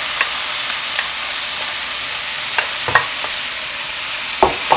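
Diced potato, carrot, shiitake mushroom and soy ham sizzling in hot oil in a frying pan, a steady hiss. A few light knocks against the pan come through it.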